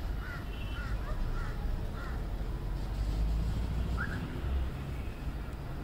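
Crows cawing: four short caws about half a second apart, then one more about two seconds later, over a steady background rumble.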